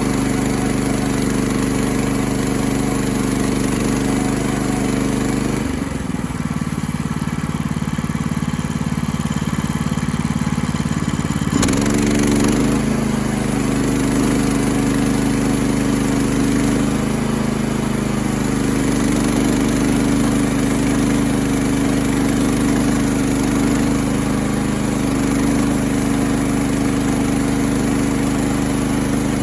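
Portable sawmill's gasoline engine running steadily, its tone shifting for several seconds about six seconds in and settling back about twelve seconds in.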